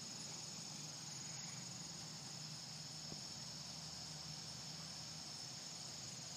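A steady, high chorus of night insects trilling without a break, over a faint low hum.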